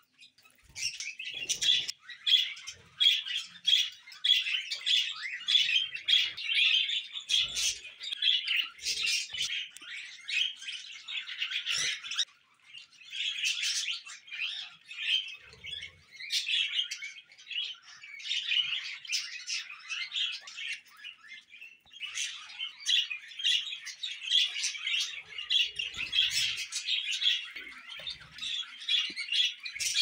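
Budgerigars chattering and warbling, a dense stream of quick high chirps that breaks off briefly twice.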